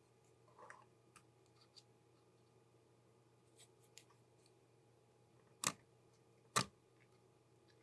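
Small parts and tools handled during camera repair: a few faint ticks, then two sharp clicks about a second apart.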